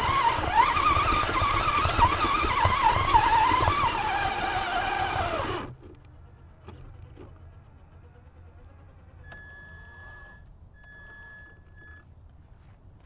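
Brushed electric motor and gear drivetrain of an Axial Honcho RC rock crawler whining as it drives, the pitch rising and falling with the throttle. The whine stops abruptly about five and a half seconds in as the truck halts. After that it is quiet, with two short high beeps near the end.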